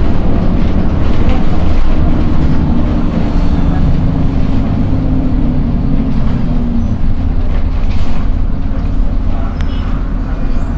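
Engine and road rumble heard inside the cabin of a moving TransJakarta city bus. The engine's hum drops in pitch and fades about six to seven seconds in, leaving a lower rumble.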